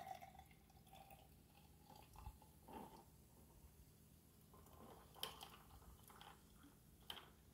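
Faint trickle of sparkling water poured from a bottle into a glass jar of ice, with a few soft clicks.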